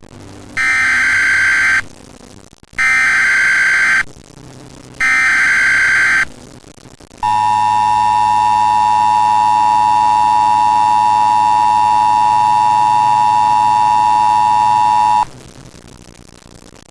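Emergency Alert System tones. First come three identical buzzing SAME header data bursts about a second apart, which carry the alert's coded origin, event and area. Then the steady two-tone EAS attention signal holds for about eight seconds and cuts off abruptly.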